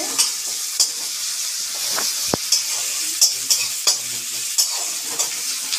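Sliced onions and garlic sizzling in mustard oil in a kadai, stirred with a spatula that scrapes the pan in repeated short strokes. The onions are being fried until brown.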